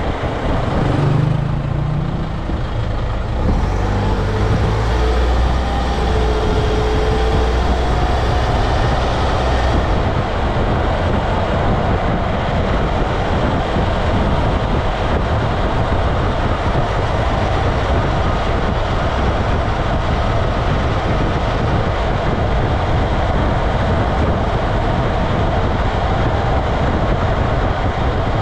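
Road noise heard from beneath a moving truck: steady tyre roar on the pavement and air rushing past the underbody, with drivetrain hum underneath. A low hum in the first several seconds drops away about ten seconds in, leaving an even rush.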